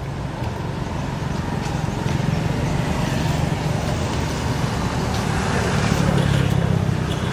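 Motor vehicle engine running close by, a steady low drone that grows louder about two seconds in.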